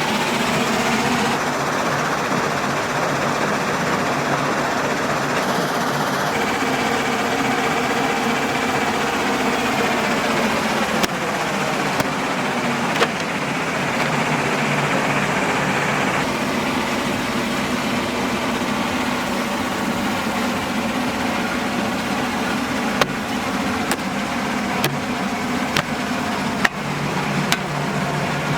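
Diesel engine of a JCB 3DX backhoe loader running at work, its engine speed falling and rising a few times, with a handful of sharp knocks in the second half.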